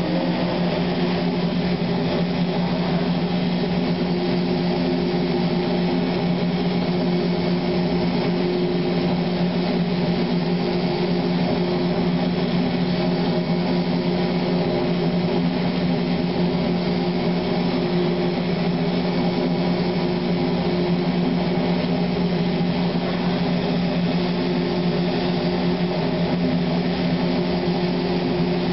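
Industrial machine running with a steady, even hum that does not change.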